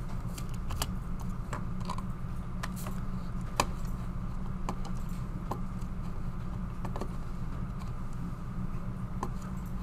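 Scattered computer mouse clicks and keyboard taps, a dozen or so at irregular spacing with one sharper click about three and a half seconds in, over a steady low electrical hum.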